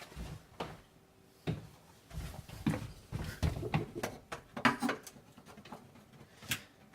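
A knife prying thin wood molding strips loose from around the glass pane of a wood door: irregular light clicks, taps and scrapes of blade against wood.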